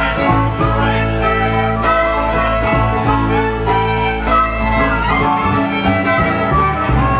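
Live bluegrass band playing an instrumental break, with the fiddle leading over strummed banjo and acoustic guitar; no singing.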